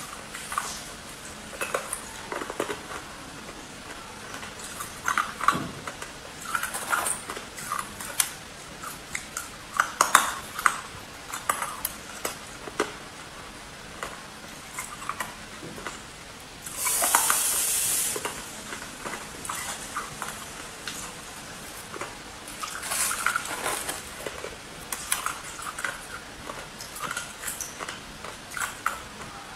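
Hard ice being bitten and chewed: sharp, irregular cracking crunches as the ice breaks between the teeth. About 17 seconds in there is a brief rustling noise lasting about a second.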